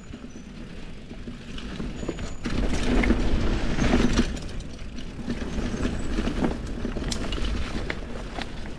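Mountain bike riding over a dirt trail: tyres rolling and the bike rattling and clicking over the bumps, with a low wind rumble on the microphone. It gets louder for a second or so about three seconds in.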